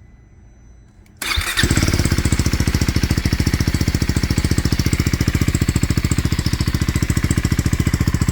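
2024 KTM Duke 390 Gen 3 single-cylinder engine cranked on the starter and catching about a second in, then settling into a steady, evenly pulsing idle. It is breathing through an aftermarket Barrel Rogue 2.0 slip-on exhaust with its decibel-killer baffle fitted.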